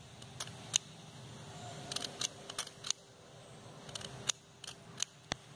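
Flint spark lighter struck repeatedly against an oxyacetylene torch nozzle: about ten sharp clicks at irregular intervals, with the torch not yet lit.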